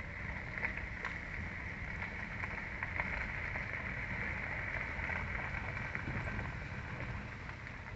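Car driving slowly, heard from inside: a steady low engine and tyre rumble with a steady higher hiss over it and a few faint ticks.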